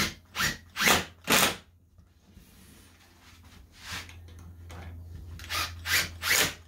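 Cordless impact driver driving screws into a wooden stretcher-bar frame in short bursts: four quick bursts in the first second and a half, then the motor hums and three more bursts come near the end.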